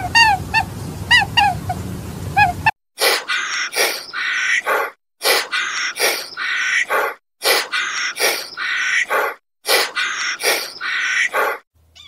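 Birds chirping in short sliding notes over a steady outdoor background. From under a third of the way in, this gives way to a series of short, harsh honking calls in groups of two or three, with brief silences between the groups.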